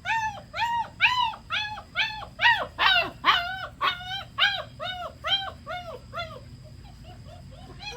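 Five-week-old German Shepherd puppies crying: a quick run of short, high, arching whines, about three a second, which grow fainter after about six seconds. The puppies are crying to be with their owner.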